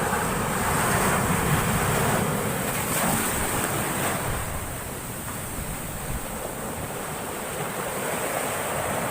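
Big storm waves crashing and washing up the shore: one rushing roar swells over the first few seconds, then eases into a steadier wash.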